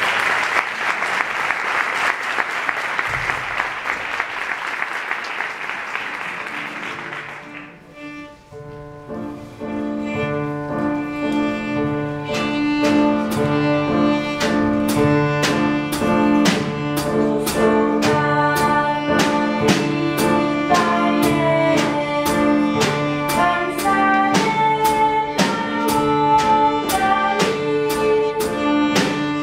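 Audience applauding for about seven seconds, then a small band starts playing: a violin melody over a steady bass line, with drums coming in a few seconds later and keeping a regular beat.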